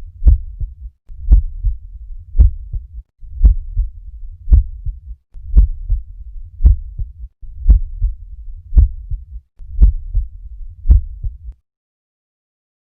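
Normal heart sounds auscultated at the cardiac apex: a steady, regular lub-dub, a little under one beat a second, each beat a louder first sound followed by a softer second one. The recording stops suddenly about a second before the end.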